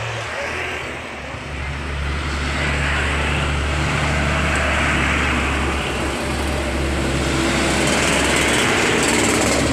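Road traffic passing close by: a motor vehicle's engine drone with tyre and road noise, swelling in the first couple of seconds and then holding loud.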